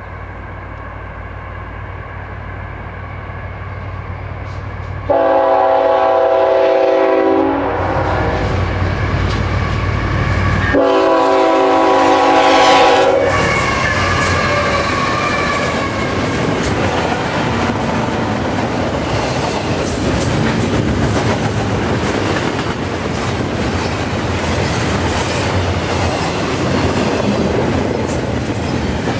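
CN diesel freight locomotives approaching with their engine sound growing louder, sounding two long horn blasts about five and eleven seconds in. Then the locomotives pass close and a long train of double-stacked container well cars rolls by with steady wheel and rail clatter.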